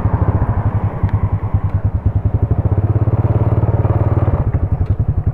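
Tiger 120 cc motorcycle engine running under way, with rapid firing pulses. The engine note holds steady and strong through the middle, then drops off about four and a half seconds in.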